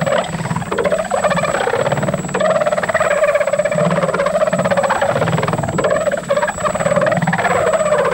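Saker 6-inch cordless mini buffer polisher running on its lowest speed setting, its foam pad spreading glaze on car paint. A steady motor hum with a thin high whine, its pitch wavering up and down as the pad is pressed and moved over the panel.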